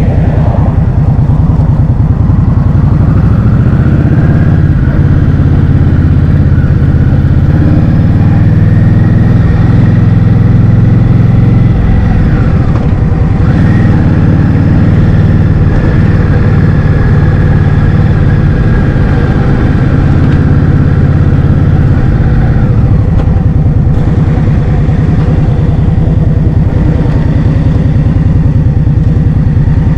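Wind buffeting the microphone of a moving scooter, with the scooter's motor whine rising in pitch as it speeds up over the first few seconds, dropping about twelve seconds in, rising again and falling away about twenty-three seconds in.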